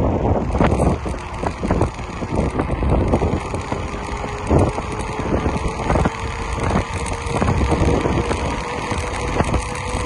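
Mountain bike rolling fast over a rough trail: rumbling tyre noise with many rattles and knocks, and wind buffeting the microphone. A faint hum rises slowly in pitch.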